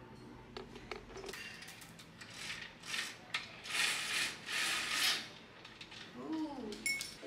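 Roller blind's bead chain pulled by hand through the blind's clutch mechanism, in several pulls between about two and five seconds in.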